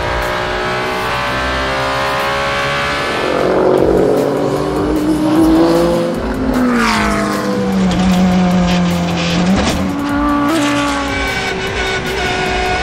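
Endurance race cars running at speed, their engine notes rising and falling. About six and a half seconds in, one car passes with a steep drop in pitch.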